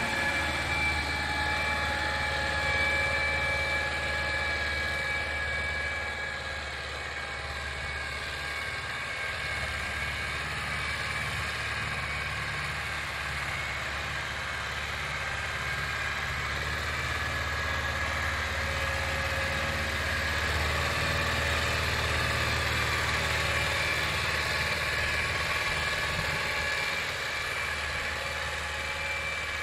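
SAME Laser 90 tractor's diesel engine running steadily as it pulls a spring-tine cultivator through ploughed soil, with a steady high whine over the engine hum. The sound grows a little fainter after about six seconds as the tractor draws away.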